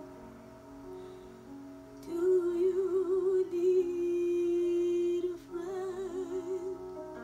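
A woman singing a wordless, wavering melody over soft instrumental accompaniment. Her voice comes in about two seconds in, holds one long note, then sings a shorter wavering phrase.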